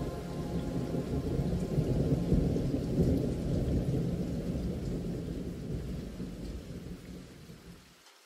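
A deep rumble over a steady hiss, loudest two to three seconds in, then fading away and cutting off near the end.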